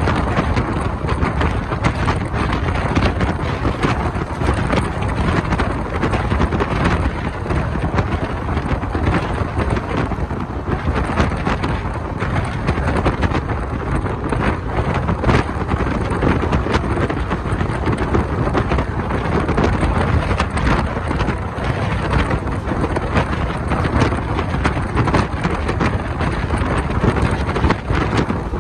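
Running noise of a moving passenger train: the steady rush of its wheels on the rails, with wind buffeting the microphone held out beside the coach.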